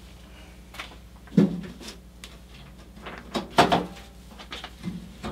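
Clunks and knocks of a Caselabs SMH10 aluminium computer case being handled and turned around. There is a sharp knock about a second and a half in, two more close together a little past three and a half seconds, and a lighter one near the end.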